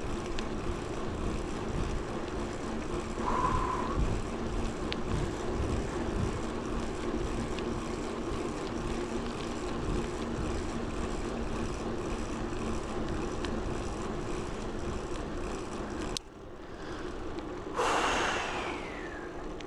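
Steady road and wind noise from a bicycle being ridden, picked up by a clip-on lapel mic. A short tone sounds about three seconds in, the noise drops abruptly about sixteen seconds in, and a brief louder sound falling in pitch comes near the end.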